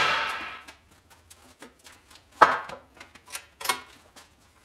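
Tools, metal parts and a wooden block being handled and set down on a steel workbench: scattered clicks and light knocks, loudest about two and a half seconds in, with two more shortly after.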